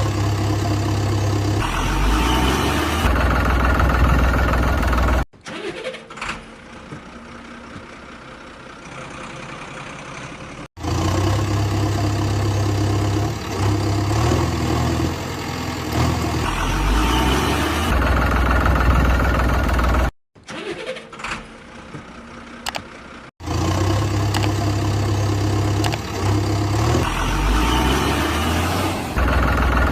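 A heavy vehicle engine running and revving in stretches that each cut off abruptly, with quieter, thinner sound between them.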